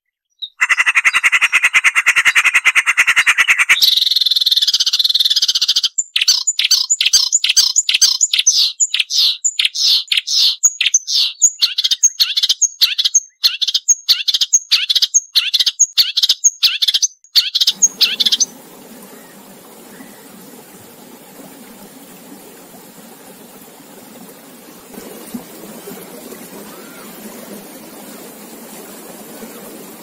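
Marsh warbler singing loudly and sharply: a buzzy phrase, then a fast run of sharp repeated notes, about three a second. About eighteen seconds in the song stops and a softer, steady sound of running water takes over.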